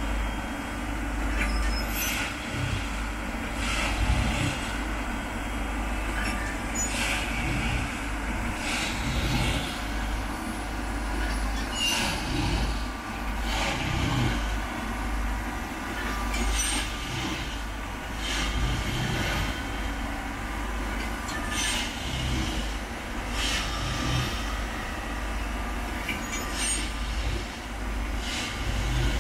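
Railway ballast tamping machine at work: a steady low engine rumble with a sharp burst of noise repeating about every two seconds as it tamps ballast sleeper by sleeper and creeps forward.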